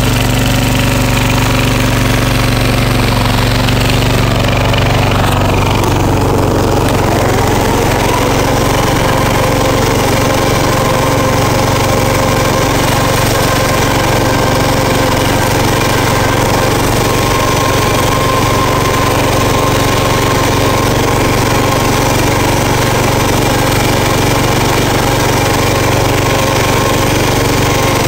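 Riding lawn tractor's newly swapped-in engine running steadily under way, its pitch rising a little about six seconds in and then holding.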